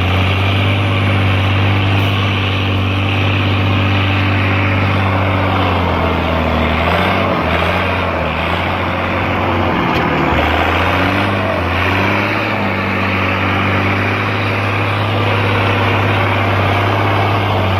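Mercedes-Benz Unimog engine running steadily under load while wading through deep swamp water, with the churning wash and splash of the wheels pushing through water. The engine note sags and recovers about halfway through.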